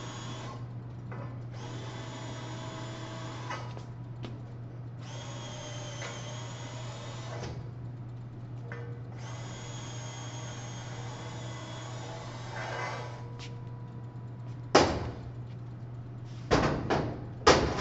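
Cordless drill spinning a countersink bit to deburr drilled holes in a steel I-beam, run four times for a few seconds each with a steady whine. A few sharp metal knocks follow near the end.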